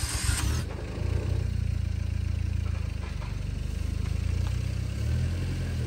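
After a short burst of noise at the start, the Jinbei van's engine runs steadily under a clutch test with the handbrake on. The engine keeps running instead of stalling as the clutch is let out, the sign that the clutch plate is burnt out and slipping.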